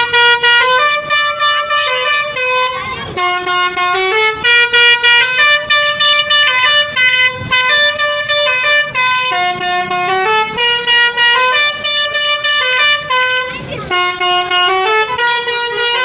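Basuri musical bus horn (the Indonesian 'telolet basuri' multi-trumpet horn) playing a fast melody of short, stepped notes, phrase after phrase.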